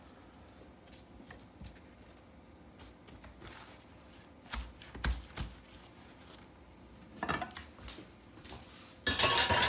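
Thawed fish fillets being patted dry and handled in paper towels on a kitchen countertop: soft pats and paper rustles, then a louder clatter of dishes about nine seconds in.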